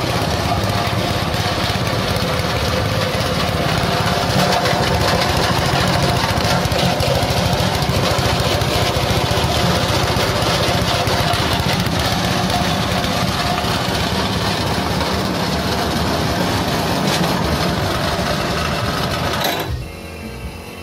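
Coconut-husk grinder driven by a small engine, running steadily at full speed while shredding husk into coco fiber and coco peat. It cuts off abruptly near the end.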